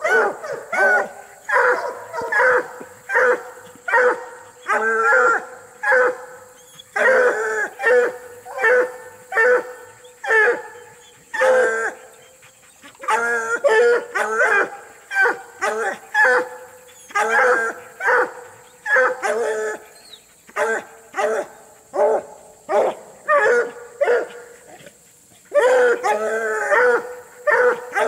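Walker coonhounds barking at a caged raccoon: hard, rapid barks about two a second, in runs broken by a few brief pauses, the sound of hounds worked up on caged game.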